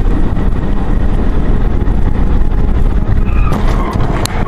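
Car running and speeding up, heard through a dashcam's microphone as a heavy low rumble of engine, tyres and wind buffeting. Near the end there are a couple of sharp clicks and some short high tones.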